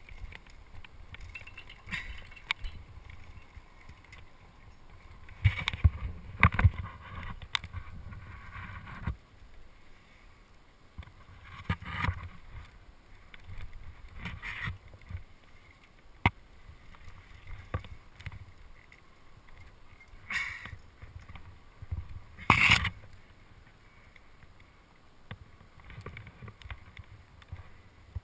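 Wind buffeting a body-worn action camera's microphone, with irregular scuffs, bumps and rustling from a climber moving on granite with rope and a harness rack of climbing gear. The loudest of these come about six seconds in and again near the end, and there is one sharp click in between.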